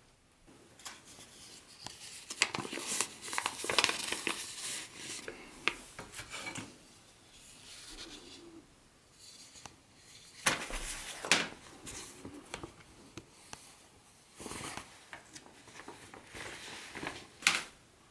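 Hands handling and unpacking the parts of an HO-scale model train set: rubbing and rustling of packaging in irregular bursts, with sharp clicks and taps, the sharpest near the end.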